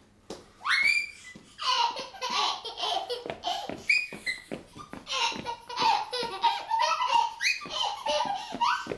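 Baby laughing and squealing in rapid, repeated bursts, starting with a rising squeal about half a second in and going on almost without pause.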